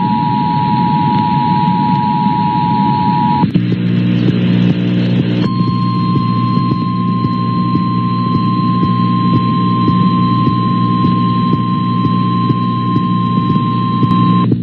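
Emergency Alert System attention signal: the two-tone alert over radio static, cutting off about three and a half seconds in. After a brief buzzing hum, the single steady NOAA Weather Radio warning tone sounds for about nine seconds over the hum and hiss, announcing a tornado warning.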